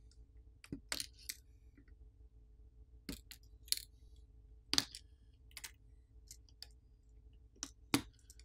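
Flex-cable press-fit connectors on a smartphone's main board being popped off with a plastic pry tool: a string of small, sharp clicks at irregular intervals.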